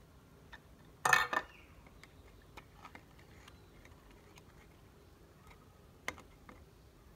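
Small metal-topped toy cans and their lids clinking and tapping as they are handled and set down: a quick clatter of several clicks about a second in, a single sharp click near the end, and light ticks in between.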